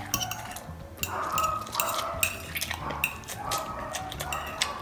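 Metal fork clinking and scraping against a glass bowl while instant pancit canton noodles are stirred and picked up, in a run of small sharp clicks.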